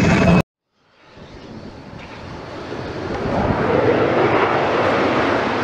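A jet airliner's engines, heard as an even rushing noise. It rises from silence about a second in, peaks a few seconds later and begins to die away near the end. Just before that silence, a different loud sound breaks off abruptly.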